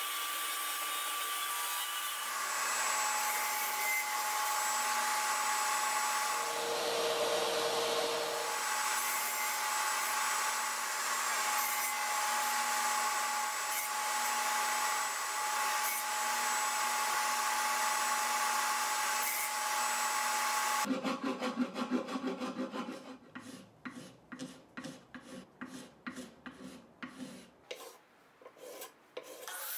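A table saw running with a steady motor hum and cutting wood. About two-thirds of the way through, it gives way to quick, rhythmic hand-sanding strokes, about two a second, on a wooden strip held in a vise.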